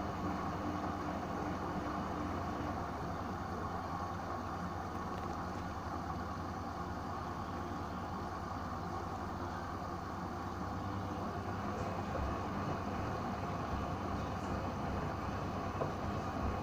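Hoover washing machine running its second rinse: a steady motor hum with the drum turning, and low thumps from about twelve seconds in.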